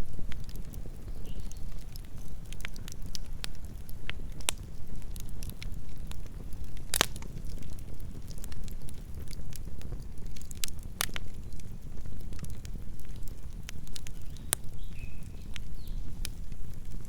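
Campfire burning: a steady low rumble of flames with scattered sharp crackles and pops from the burning wood, the loudest pops about seven and eleven seconds in.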